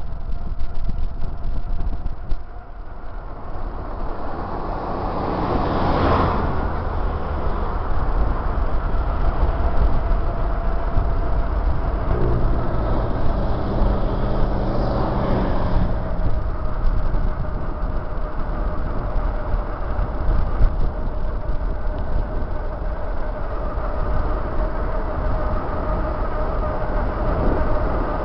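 Wind rushing over the microphone and tyre noise of a bicycle coasting fast down a paved road, with a steady low rumble. Motor vehicles pass about six seconds in and about fifteen seconds in; the second is an oncoming heavy vehicle whose engine is heard as it goes by.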